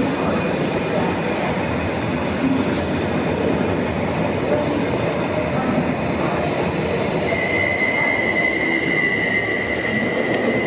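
Greater Anglia Class 720 electric multiple unit running past the platform: a steady, loud rumble of wheels on rail. A high steady squeal comes in about halfway through and drops to a lower pitch for the last few seconds, as a Greater Anglia Class 755 comes into shot near the end.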